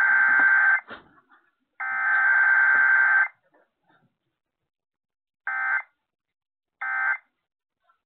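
Emergency Alert System digital header tones from a KDKA-FM EAS test, played through a radio's speaker: raspy data bursts, two of about a second and a half, then three short ones about a second and a half apart, the short set typical of an end-of-message code.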